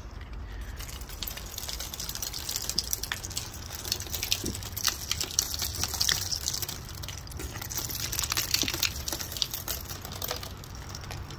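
Thin icicles and glaze ice snapping off a wooden deck railing as a hand sweeps along it, breaking in a dense tinkling crackle of many small clicks as the shards scatter onto the deck.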